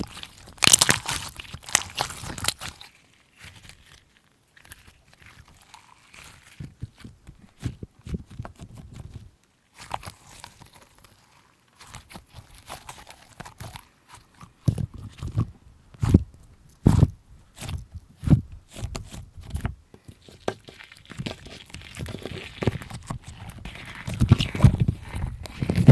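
Slime being worked by hand: irregular sticky clicks, crackles and pops, louder at the start and again near the end, with sparser quiet clicks in between.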